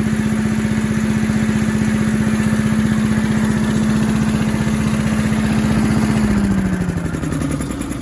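Little Wonder 13 hp Honda-powered high-output leaf blower running at full speed with a steady engine tone and no banging from the impeller, now repaired. About six seconds in, the engine winds down to a lower speed.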